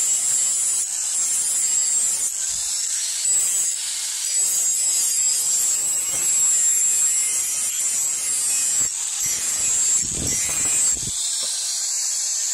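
Handheld electric angle grinder grinding a steel hoe head, a steady high-pitched whine with the grinding hiss of the disc on metal. A low rumble joins it for about a second around ten seconds in.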